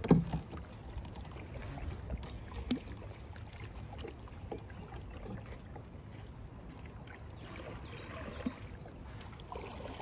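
Paddling a sit-on-top kayak: the paddle blades dip and splash, with a thump right at the start and a few light knocks, over a low steady rumble.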